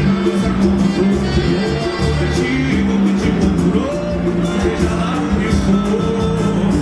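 A band playing a song: a sung melody over sustained bass notes and a steady percussion beat.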